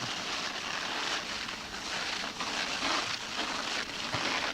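A sled sliding through fresh, unpacked snow, a continuous rough hiss that stops abruptly at the end.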